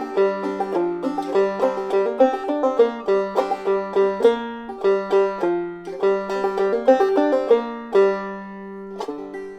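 Clawhammer banjo in sawmill tuning (gDGCD) playing a lively old-time tune, ending on a last chord about nine seconds in that rings out and fades.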